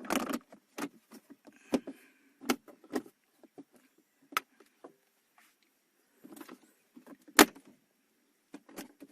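Plastic clicks, knocks and rattles of the shift indicator trim of a Toyota Vios being fitted back into place. The loudest is one sharp snap about seven seconds in, as a clip seats.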